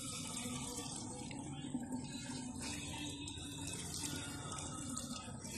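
Mains tap water running steadily from a hose onto a tiled floor.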